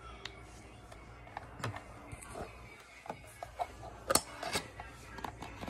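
Portable DVD player being handled: scattered clicks and plastic knocks as its lid is opened and the disc is lifted off the spindle. The sharpest clicks come about four seconds in.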